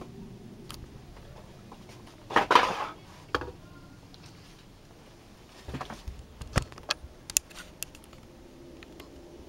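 Handling noise from a handheld camera being swung about: a short scraping rustle about two and a half seconds in, then scattered sharp clicks and knocks in the second half, over faint background noise.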